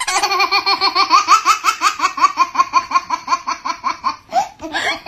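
Young child's laughter: a long run of quick, high-pitched "ha-ha" pulses, about five a second, breaking into a few shorter laughs near the end.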